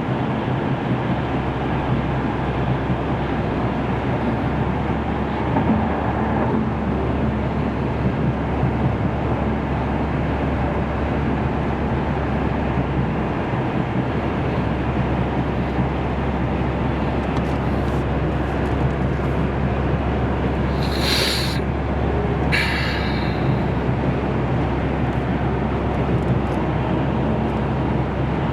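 Steady road and engine noise heard from inside a car cruising on a highway, with a low drone underneath. About three quarters of the way through, two short hissing bursts come about a second and a half apart.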